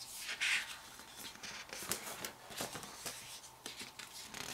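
Photobook pages being turned and handled: a soft paper swish near the start, then a run of light clicks and rustles.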